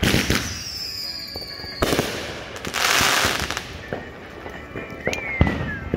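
Consumer aerial fireworks going off: a bang, a whistle falling in pitch, a second bang, then a loud hissing burst about three seconds in. Near the end another falling whistle ends in a sharp bang.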